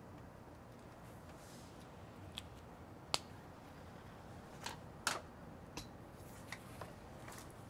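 Paper sheets in a ring binder being handled and a page turned: a scatter of short, sharp paper snaps and clicks, the loudest about three and five seconds in, over a faint steady hiss.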